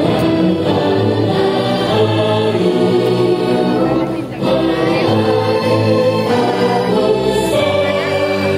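Live music over a concert sound system, with many voices singing together in long held notes: an Indonesian patriotic song sung in unison.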